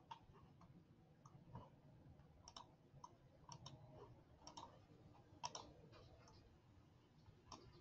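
Faint, irregular clicks of a computer keyboard and mouse, one keystroke or button press at a time, some in quick pairs.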